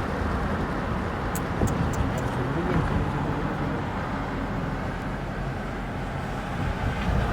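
City street traffic noise: a steady rumble of passing vehicles, with a quick run of four light high ticks about a second and a half in.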